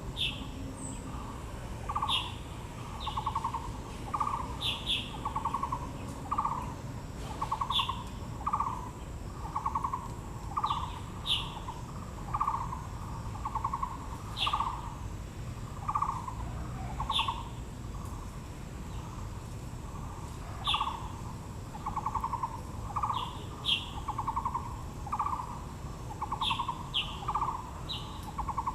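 Wild birds calling: a low hooting note repeated about once a second, with a pause of a few seconds past the middle, and short, higher downward chirps from another bird in between.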